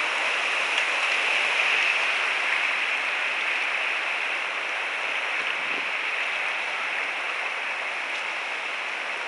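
Steady rush of flowing river water, an even hiss with no breaks that eases slightly toward the end.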